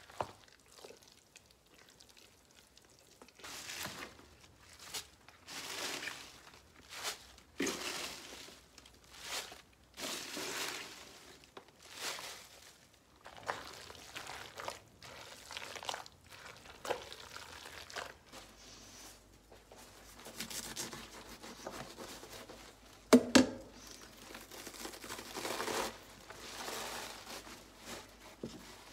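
Hands mixing kimchi seasoning (red pepper flakes, julienned radish and paste) in a stainless steel pot: a run of short swishing, rustling strokes, "쉭쉭" (swish swish). A sharp double knock about two-thirds of the way through is the loudest sound.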